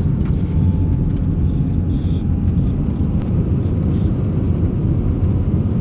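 Steady low rumble inside a pickup truck's cab as it drives along a snow-covered road: engine and tyre noise.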